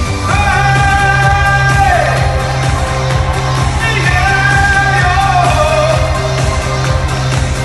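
Male pop singer singing live into a microphone over loud backing music with a steady beat and bass, holding two long notes that each fall away at the end.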